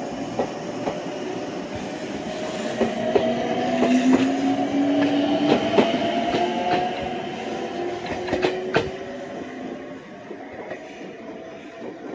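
Meitetsu electric train running on the Nagoya Main Line: wheels clicking over rail joints and a motor whine that rises slightly in pitch, loudest in the middle and fading away near the end.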